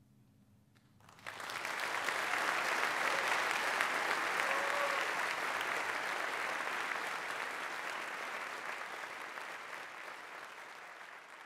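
Audience applauding. The clapping breaks out suddenly about a second in, right after the ensemble's last note dies away, then slowly tapers off toward the end.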